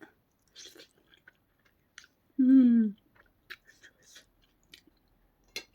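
A person chewing a first mouthful close to the microphone, with small scattered mouth clicks, and a short hummed "mmm" about two and a half seconds in.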